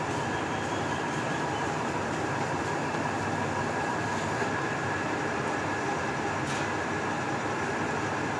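Steady mechanical drone of a machine running in the background, even and unchanging, with a faint steady whine above it.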